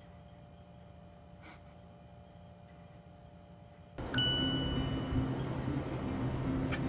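A few seconds of quiet with a faint steady hum. Then, about four seconds in, a single bright ding rings out and background music with sustained low notes begins.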